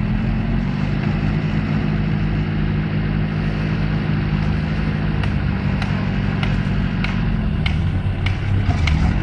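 Small off-road 4x4's engine pulling steadily at held revs as it crawls up a loose, stony slope, then revving up near the end. A few sharp clicks, like stones knocking, are scattered through the second half.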